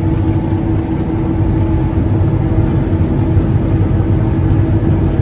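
John Deere combine running steadily while cutting wheat, heard from the cab: an even, steady hum over a rumble.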